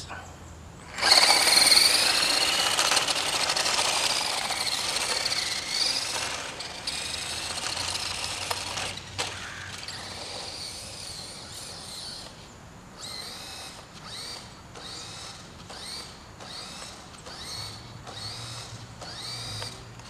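Toy remote-control car's electric motor whining as the car drives off, the pitch rising and falling with the throttle. The whine fades, and from about two-thirds of the way through comes a regular run of short motor bursts, about one and a half a second, each with a rising whine.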